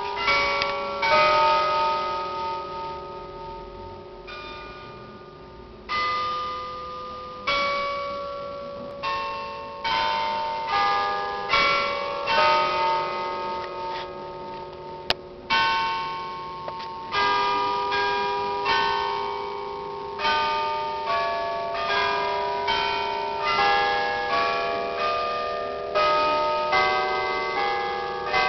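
Church tower bells of several pitches struck one after another in an uneven tune, each note ringing on and fading into the next, with a short lull a few seconds in. It is part of the 8 a.m. hour chime.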